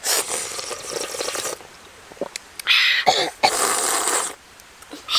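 Slurping of broth from a coconut-shell bowl: a long slurp at the start, then two more shorter slurps in the second half.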